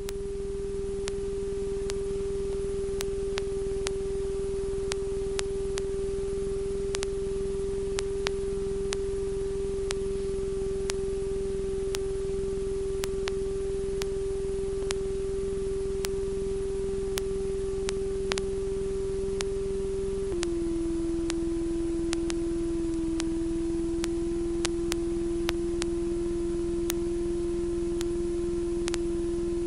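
Steady single-tone electrical whine on a light aircraft's intercom or headset audio feed, with faint clicks. The whine steps down slightly in pitch about two-thirds of the way through.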